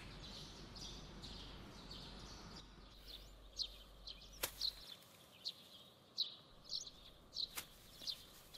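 Small birds chirping faintly in short, high, repeated calls. Twice, once about halfway through and again near the end, there is a sharp click as a small garden trowel strikes the soil.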